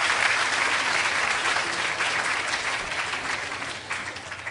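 Audience applauding in a lecture hall, a dense spread of hand claps that is loudest at first and tapers off over the last couple of seconds.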